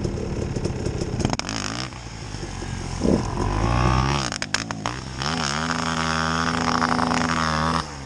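KTM enduro motorcycle engine revving with the throttle, its pitch climbing and dipping, then held at high revs for a couple of seconds before falling off near the end. A few sharp clicks come about halfway through.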